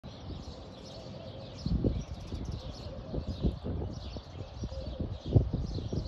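Small birds chirping and twittering in many quick, high notes, with low muffled thumps on the microphone, the loudest about two and five seconds in.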